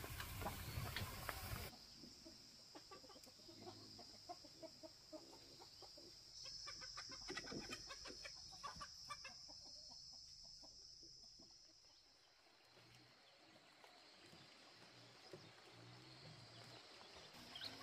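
Faint farmyard chickens clucking now and then, over a steady high-pitched drone. The sound drops quieter about two seconds in.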